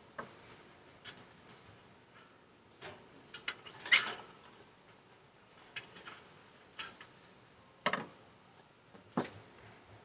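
Sparse light clicks and taps of a small plastic feeding cup being handled at a wire birdcage, with one louder, sharper sound about four seconds in.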